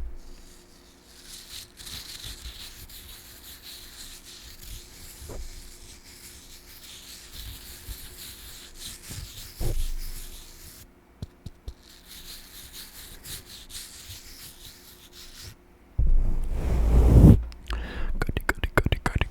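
Soft, scratchy brushing against the microphone, an ASMR brushing trigger, with a short pause about halfway. Near the end a loud low rush comes in, followed by rapid mouth clicks.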